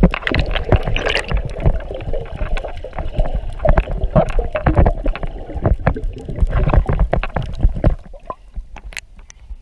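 Muffled underwater sound picked up by a camera below the surface: irregular sloshing, gurgling and knocking of water against the camera. It dies down about eight seconds in.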